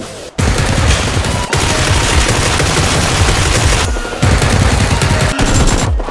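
Rapid bursts of machine-gun fire, a dubbed-in firearm sound effect laid over a Nerf blaster shootout. The firing starts about half a second in and breaks off briefly a little before four seconds in.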